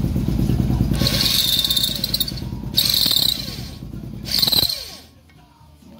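Motor-driven valve-seat grinder spinning a 22 mm abrasive stone on a pilot in the valve guide of a Honda CBR600 F2 cylinder head, grinding the valve seat in three harsh spells and stopping about five seconds in. The seat is being refaced because the valve was not sealing all the way round.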